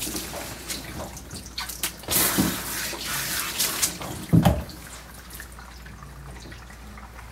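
Water from a handheld tub sprayer hissing over a wet dog for about a second and a half, among small splashes and drips, then a single loud thump a little over four seconds in. After it, water drips steadily in the bathtub.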